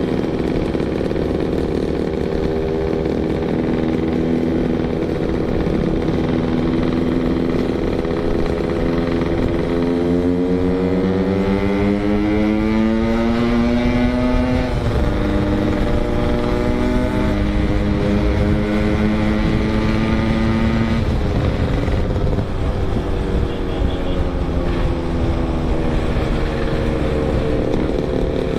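Yamaha RX-King 135cc two-stroke motorcycle engine under way. It holds steady, then climbs in pitch as it accelerates, drops sharply at a gear change about halfway through, and falls again a few seconds later, with wind rumble on the microphone.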